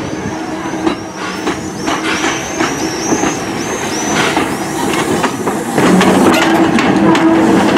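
Steam tank locomotive 423.094 working a passenger train, its exhaust chuffing about three beats a second under load. It gets louder about six seconds in as the engine passes close by.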